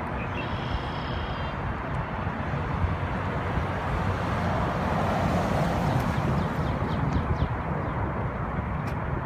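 Steady low vehicle rumble with outdoor background noise, swelling a little in the middle; a few faint high tones sound briefly about a second in.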